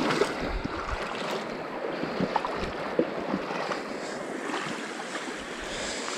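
Stream water rushing and splashing through and over a beaver dam of sticks, a steady rush with scattered small clicks and snaps.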